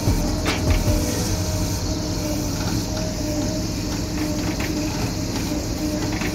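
Komatsu PC200 hydraulic excavator's diesel engine running steadily close by, with a steady pitched hum over it and a couple of short knocks about half a second in.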